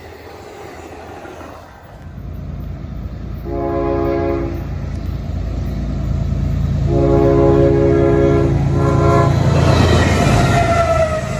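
A train's locomotive air horn sounds a chord, first one blast of about a second, then a longer blast and a short one, over the rumble of the approaching train. Near the end the train passes loudly, with a falling-pitch tone over its rumble and rattle.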